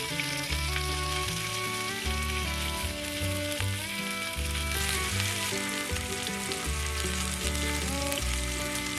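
Keema curry ingredients sizzling as they fry in a pan, a steady dense hiss, with background music playing underneath.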